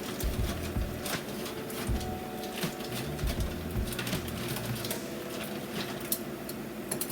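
Frozen green beans and onion sizzling in oil in a wok, stirred with a wooden spoon, with the spoon clicking and knocking against the pan through about the first five seconds.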